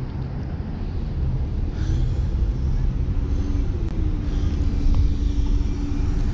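A minivan driving past on the street, its engine and tyres a steady hum that comes in about halfway through, over low rumble of wind on the microphone.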